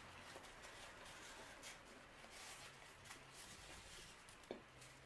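Near silence: room tone with faint scattered soft clicks and rustles, and one small tap about four and a half seconds in.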